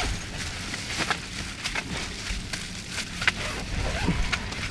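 Soft rustling and scattered clicks of movement and handling over a low rumble, with a short pitched sound about four seconds in.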